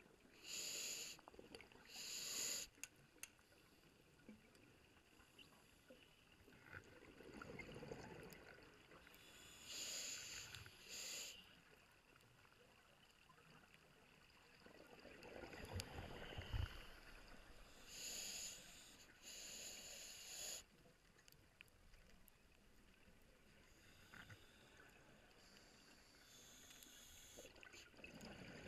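Scuba diver breathing through a regulator underwater, faint: a hissing inhale in two short pulls about every eight or nine seconds, with a low bubbling rumble of exhaled air between the breaths.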